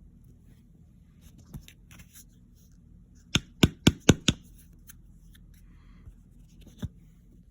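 Hard tools being handled and set down on a surface: a quick run of about five sharp knocks and clicks near the middle, and one more near the end.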